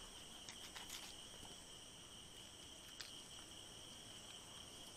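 Faint, steady chorus of insects, a high even chirring, with a single faint click about three seconds in.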